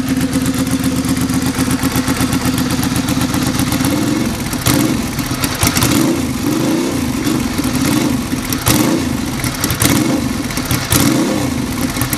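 Ducati Multistrada 1000's air-cooled V-twin running: a steady idle for about four seconds, then the throttle is blipped again and again, the revs rising and falling about once every second. The engine sounds healthy, with no abnormal noise.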